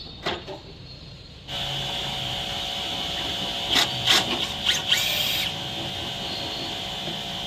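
A small motor-driven machine switches on about a second and a half in and runs steadily with a hum and a hiss. A few clicks and knocks come over it, with a brief higher whine around the middle.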